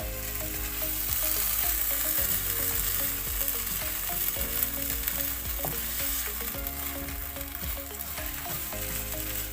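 Vegetable bolognese sauce sizzling in a pan as tomato purée is stirred in, with a steady hiss and scattered light scrapes and taps of the spoon.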